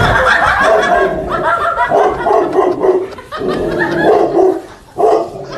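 A large dog barking loudly and repeatedly.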